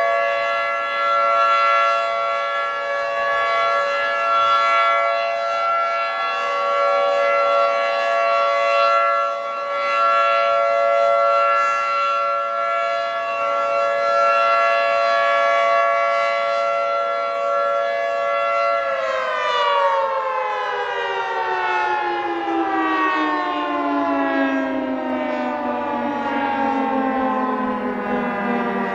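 Federal Signal 2T22 dual-tone rotating outdoor warning siren sounding a steady chord, its loudness swelling and fading gently. About two-thirds of the way in, the tone stops holding and the pitch slides steadily down as the siren winds down at the end of its test run.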